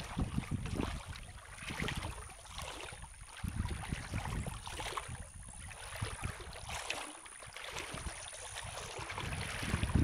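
Wind buffeting the microphone in uneven low gusts over the rush of shallow river water, with a faint steady high-pitched tone underneath.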